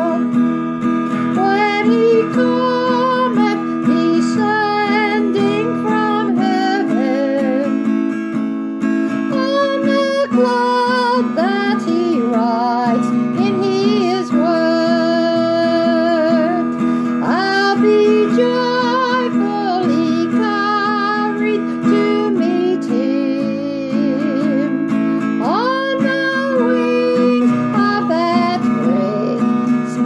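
A woman singing a country gospel song while strumming an acoustic guitar.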